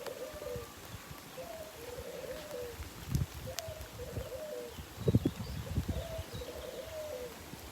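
A dove cooing in a repeated phrase, each call about a second long and coming every second and a half or so. There are a few low thumps about three and five seconds in.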